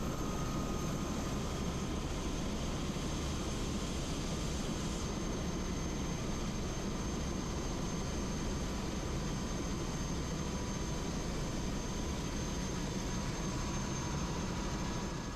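Helicopter in flight: a steady high turbine whine over dense engine and rotor noise, fading out near the end.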